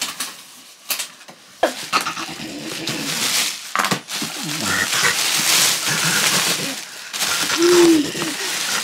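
Plastic bags rustling and crinkling as they are handled inside a torn cardboard parcel box, with a few sharp knocks of cardboard in the first few seconds.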